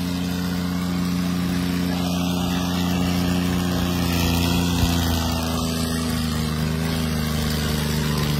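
Diesel engines of a Mahindra 265 and a Swaraj 963 tractor running hard at a steady pitch, both pulling under heavy load in a tochan (tractor tug-of-war). There is one short click about five seconds in.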